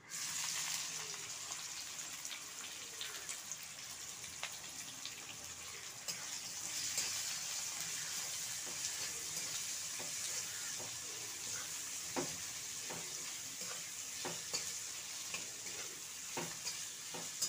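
Chopped onions sizzling as they fry in hot oil in a metal kadai. A spatula stirs them, with a few sharp knocks and scrapes against the pan in the second half.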